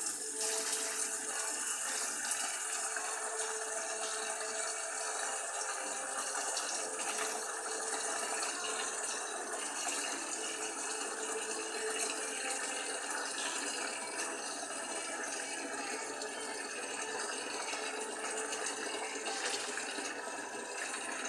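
Tap running steadily into a sink, water filling it.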